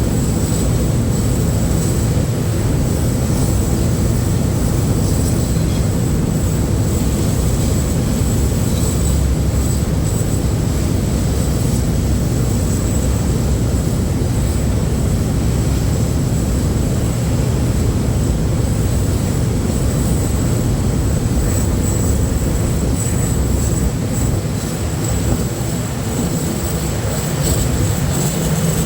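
Diesel locomotive D9E-231 hauling a freight train: a loud, steady low rumble of engine and running gear.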